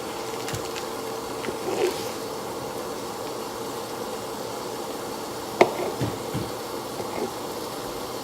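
Steady mechanical hum, with a sharp knock about five and a half seconds in and a few lighter knocks after it.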